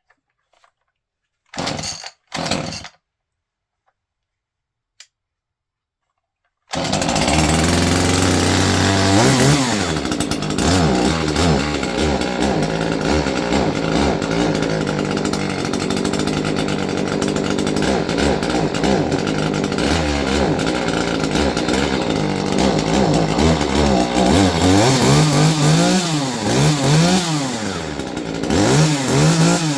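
Stihl MS 151 TC top-handle chainsaw's small two-stroke engine: after a few seconds of near silence with two short noises, it starts running abruptly about seven seconds in and keeps going, at first fairly steady, then revved up and down repeatedly, most often near the end.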